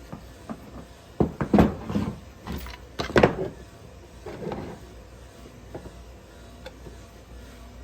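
A flurry of knocks, clatters and scrapes of parts being handled and set down on a work surface, lasting about three seconds. A softer rattle follows, then a few faint clicks.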